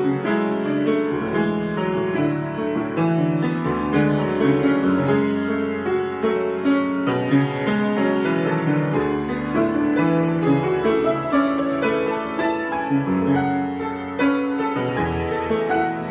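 Improvised piano playing: steady chords and melody notes over low bass notes that change every few seconds.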